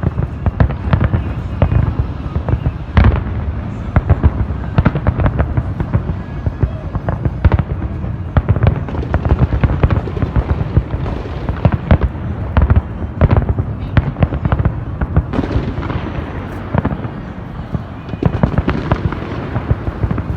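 Fireworks display: a dense, continuous barrage of bangs and crackling reports over a deep rumble, with the heaviest bursts about three seconds in and again in the last few seconds.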